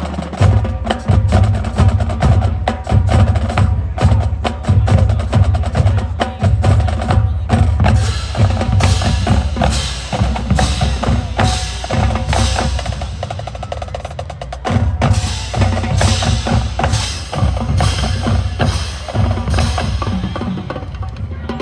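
Marching band drumline playing a loud percussion passage: fast snare patterns and rolls over pounding bass drums, with sharp woodblock-like clicks.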